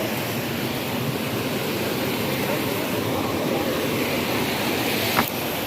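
River water rushing in a steady, loud wash, with one sharp click about five seconds in.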